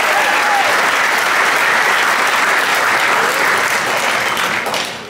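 Theater audience applauding, with a few whoops over the clapping; the applause dies down near the end.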